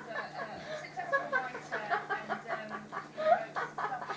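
Alaskan Malamutes vocalizing at each other: a quick, unbroken run of short yowling, warbling calls that bend up and down in pitch.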